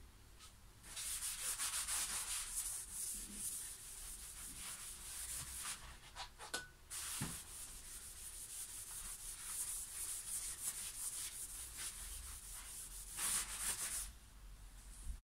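Hand sanding a roasted maple guitar neck with sandpaper: a steady hiss of back-and-forth rubbing strokes that starts about a second in.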